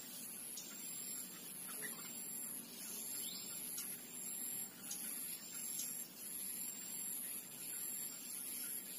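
A high-pitched buzz pulsing on and off about three times every two seconds, over a steady background hiss, with a few faint short bird chirps a couple of seconds in.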